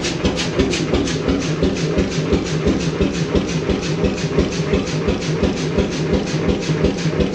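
1928 Beijer 13 hp two-stroke hot-bulb oil engine running with its injection pump turned down low, knocking in an even, rapid beat.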